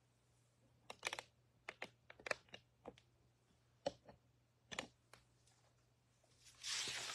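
Faint, irregular clicks of typing on a computer keyboard, about a dozen keystrokes in small clusters. A louder rustling, handling noise starts near the end.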